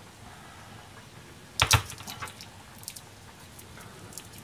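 Garlic cloves being handled on a plastic cutting board: light clicks and the crackle of papery skins, with two sharper knocks close together about a second and a half in.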